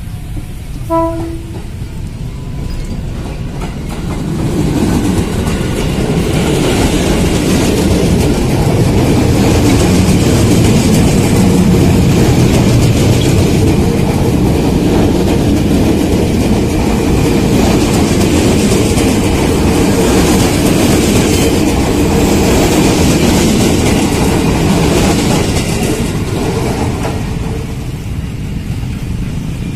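Ex-JR 205-series electric commuter train giving a short horn toot about a second in, then running past close by, its wheels clattering steadily over the rails for some twenty seconds before easing off near the end.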